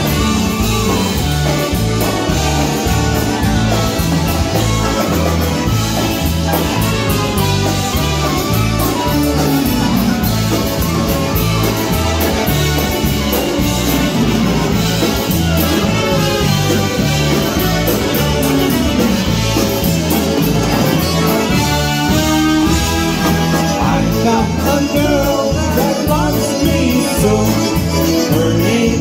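Live polka band playing: concertinas and piano accordion with trumpets, saxophone, electric bass and drums over a steady oom-pah bass beat, with men singing the vocal.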